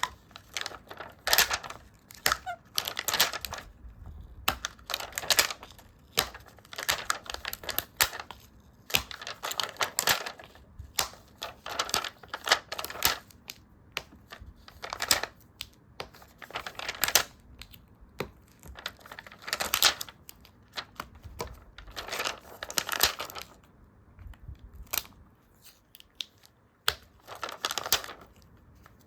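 Stickers peeled off their backing sheets and paper handled for a journal: short peeling and crinkling rustles one after another, about one a second, with quick light taps and clicks between them.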